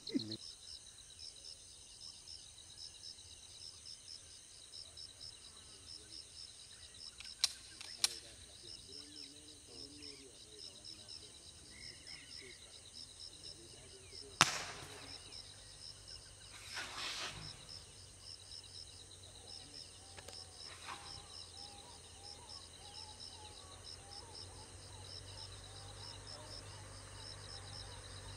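Outdoor ambience of insects chirring in a steady, rapid pulsing rhythm, broken by two sharp clicks about a quarter of the way in and a louder sharp crack about halfway through, followed shortly by a brief rustle.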